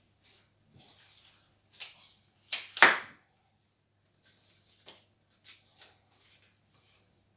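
Flower stems and foliage being handled and worked into an arrangement: a string of short rustles, the loudest pair just under three seconds in.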